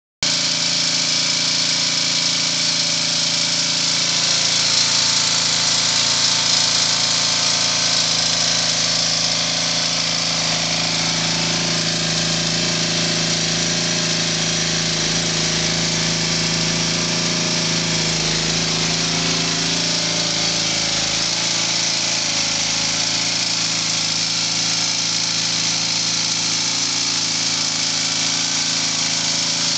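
Small 3.5 hp single-cylinder lawnmower engine running steadily, driving a permanent magnet alternator.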